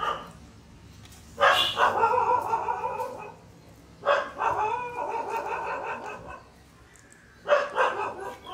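A dog barking and whining in four bouts, the two longest drawn out over two to three seconds each.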